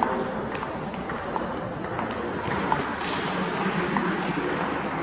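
Table tennis ball being hit back and forth in a rally: sharp clicks of ball on paddle and ball on a Joola table, roughly one every half second to second. Underneath is the steady hum of a busy sports hall.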